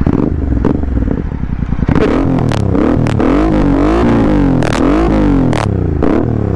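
Royal Enfield Continental GT 650's parallel-twin engine, through an aftermarket Red Rooster exhaust with no dB killer fitted, revved hard while standing. It runs steadily for about two seconds, then is blipped up and down several times, with sharp pops between the revs.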